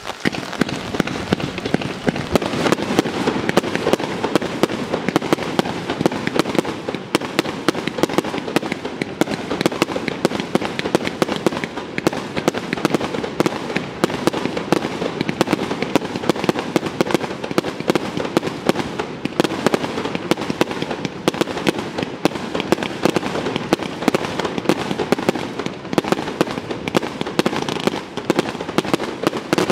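A 100-shot consumer firework cake firing in a rapid, unbroken string of shots, with the crackle of strobe stars bursting and many sharp cracks a second.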